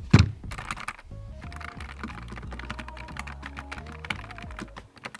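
Typing on a Nuphy Air 75 V2 low-profile mechanical keyboard: a quick run of key clicks, with one louder thump about a quarter second in.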